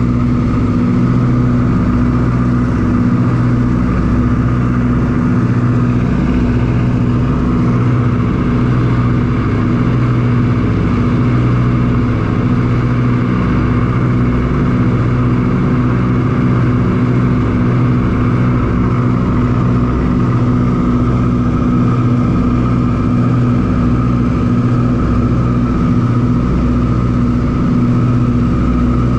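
Ford Tri-Motor's three radial engines and propellers running steadily in level flight, heard from inside the cabin as a loud, unchanging low hum.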